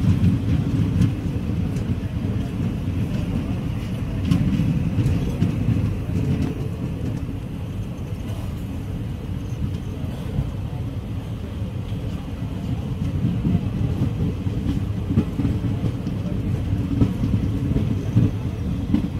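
Passenger train running, heard from its open door or window: a steady rumble of wheels on the track with a few sharp clicks.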